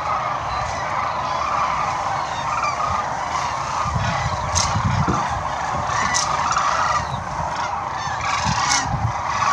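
Chorus of sandhill cranes calling in flight: many overlapping calls from a large flock, running on without a break.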